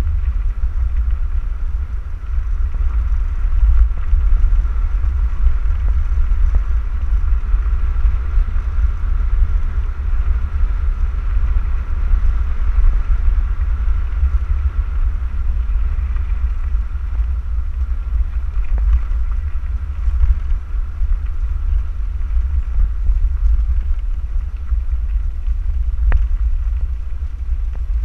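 Outrider Horizon electric handcycle rolling along a gravel road: a loud, steady low rumble of wind buffeting the microphone and tyres on gravel, with a faint steady whine above it.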